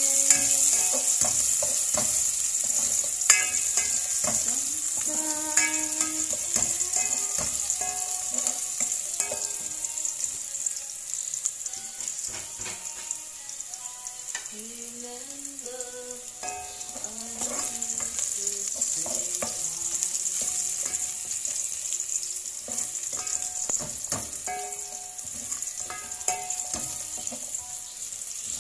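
Chopped garlic sizzling as it sautés in oil in a large aluminium pot, with a steady hiss and the spatula knocking and scraping against the pot as it is stirred.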